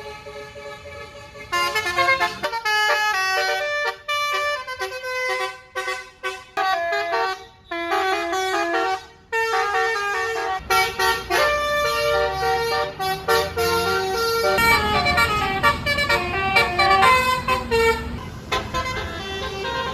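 Basuri telolet multi-tone air horn on a tour bus playing quick, stepped melodies, starting about a second and a half in and broken by short pauses between phrases. Roughly halfway through, the bus's engine comes in underneath, rising in pitch as it revs up.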